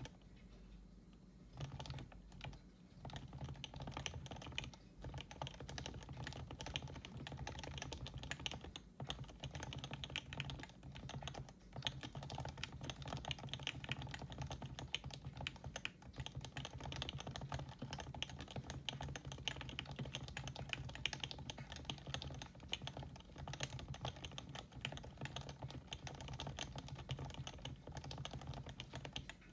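Fast continuous typing on an HHKB Professional 2 electrocapacitive (Topre) keyboard whose switches have been lubricated with Krytox 105 oil, with a short lull just after the start.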